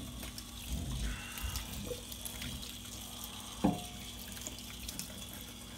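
Water running from a kitchen sink sprayer into a stainless steel sink as a wet dog is rinsed, with one brief knock about two-thirds of the way through.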